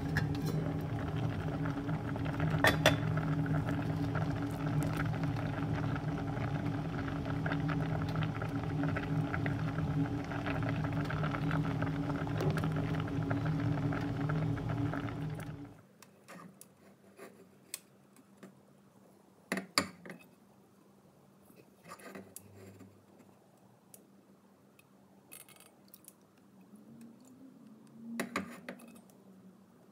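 Kitchen sounds: a steady low hum with a noisy rush stops suddenly about halfway through. Then it goes quiet apart from a few scattered clinks and knocks of utensils against a stainless steel cooking pot.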